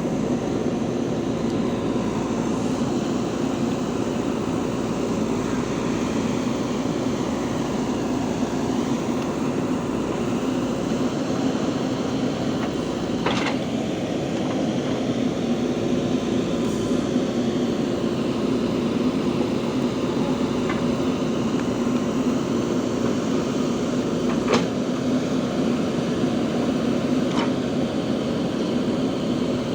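JCB 3DX backhoe loader's diesel engine running steadily while it works, with a few sharp knocks.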